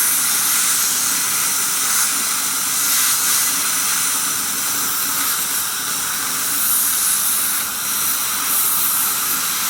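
Dental air-polishing handpiece spraying a jet of air, water and polishing powder onto the teeth: a steady, loud hiss that swells and dips slightly.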